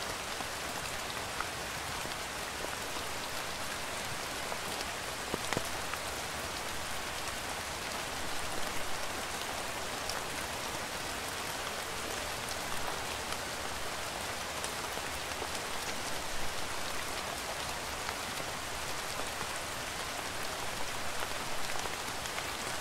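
Steady rain falling, an even hiss dotted with the occasional tick of a single drop.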